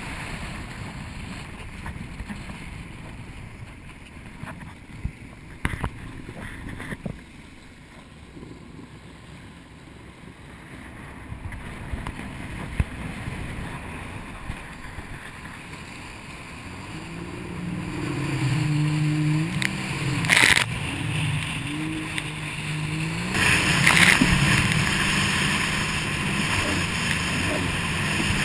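A sit-down jet ski's engine on the move over choppy water, its pitch stepping up and down with the throttle, coming up loud in the second half after a quieter stretch of wind and water rush on the microphone. Two sudden loud blasts of wind and spray break in near the end.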